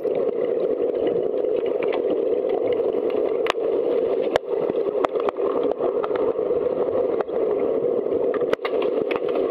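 Steady muffled rushing of water in a swimming pool during an underwater hockey game, with scattered sharp clicks and knocks.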